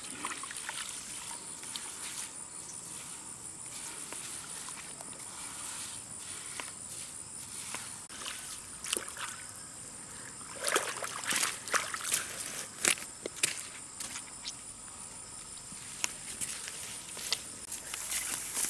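Water sloshing and splashing, with a cluster of splashes and knocks about halfway through and more near the end, over a steady high-pitched insect buzz.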